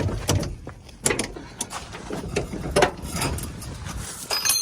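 Hand tools clicking and knocking on metal as a Mazda MX-5's driveshaft is being refitted, in irregular sharp strikes, with a brief metallic ring near the end.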